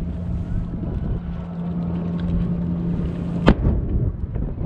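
A single loud bang from a distant aerial firework shell bursting, about three and a half seconds in, with a short rolling echo after it. Before the bang there is a steady low hum over a low rumble.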